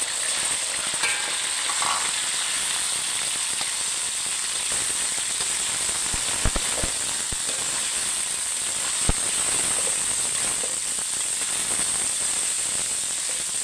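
Diced pork belly sizzling in hot oil with fried garlic in a wok: a loud, steady hiss that starts as the meat goes in. In the middle there are a few sharp clicks of the metal spatula against the wok as the meat is stirred.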